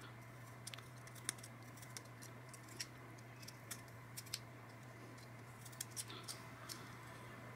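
Hobby knife blade cutting a small notch into the edge of a drone heat sink part: faint, irregular snips and clicks, a dozen or so spread over several seconds, over a low steady hum.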